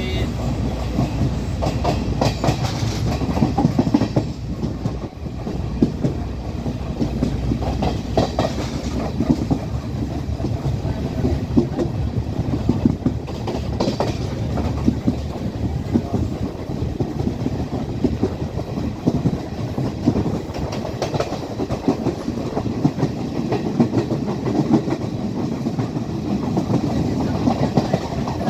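Sri Lankan Class S12 diesel multiple unit train running at speed, its wheels clattering over the rails in a steady stream of knocks. It is heard from an open door of the carriage, so the rush of air is mixed in with the running noise.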